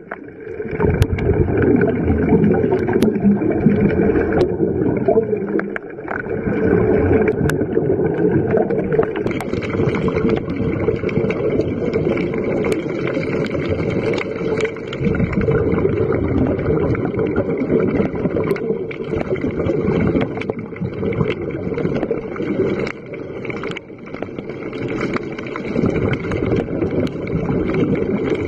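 Muffled underwater noise picked up by a diving camera: a steady low rushing with a few faint clicks.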